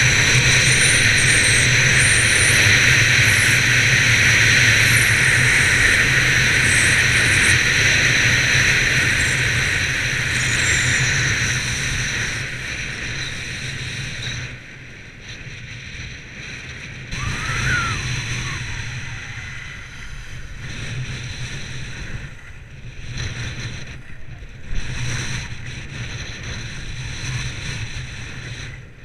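Wind rushing over an action camera's microphone and skis hissing over packed snow on a fast downhill run. About halfway through the rush drops away as the skier slows on flat groomed piste, leaving softer, uneven scraping and gusts.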